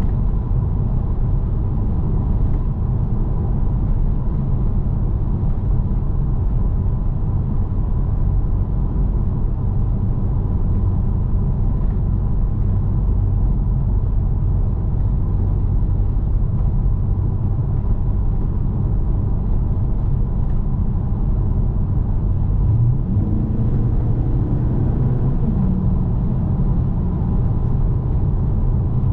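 Holden Caprice's 6-litre V8 with J-pipe exhausts, heard from inside the cabin while cruising in top gear: a steady low rumble with road noise and no drone. About 23 seconds in the engine note rises as the revs pick up, then holds.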